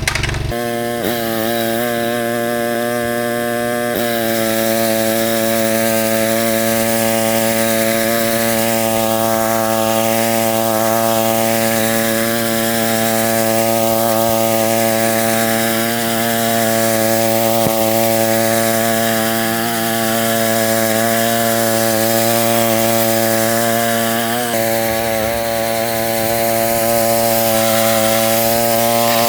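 Westermann petrol moss brush running at a steady speed: a constant engine drone under the continuous scratching hiss of its rotating brush scrubbing moss from the ground.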